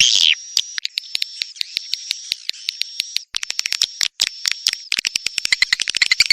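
Swiftlet calls, as played to lure swiftlets: a few loud high chirps, then a thin high twitter in short repeated strokes, then rapid clicking that speeds up into a dense chatter near the end.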